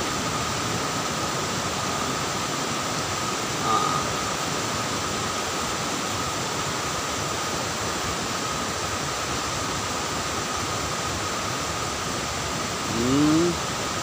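Steady rushing of a forest stream and waterfall, an even hiss that does not let up. Near the end a brief voice sound cuts in.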